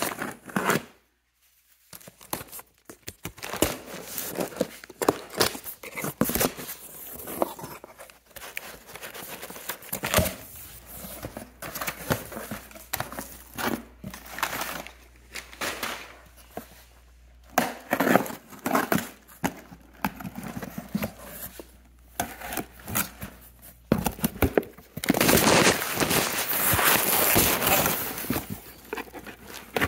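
Cardboard box being opened by hand: flaps, packing tape, crumpled packing paper and plastic air-cushion bags rustling and crinkling in irregular bursts with scattered clicks, and a longer, louder stretch of rustling near the end.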